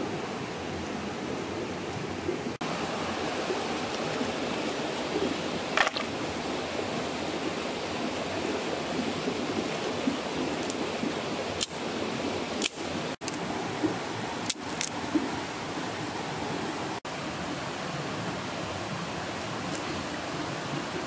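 Steady rushing of a flowing river. A few short, sharp clicks and knocks are scattered over it, most of them in the middle of the stretch.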